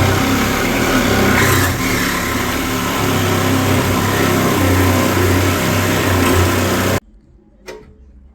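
Loud, steady power tool cutting through the steel radiator cradle of a car, running continuously and cutting off suddenly about seven seconds in, followed by a faint knock.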